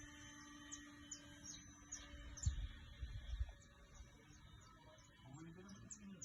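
Small birds chirping, a quick run of short, high, falling chirps repeated every fraction of a second, with wind buffeting the microphone in a few low thumps in the middle.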